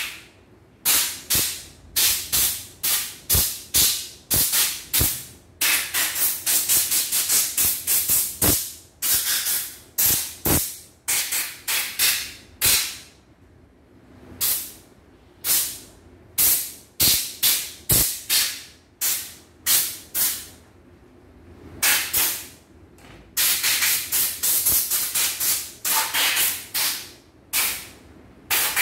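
Compressed-air blow gun blowing dust and dirt out of the stripped-down frame of a portable computerized embroidery machine. Dozens of short hissing blasts, often in quick runs of three or four a second, with short pauses between runs.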